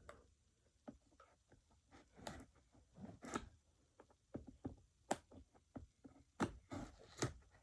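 Knife slitting and scraping packing tape on a cardboard box: faint, irregular scratches and sharp clicks, with a couple of longer rasping strokes.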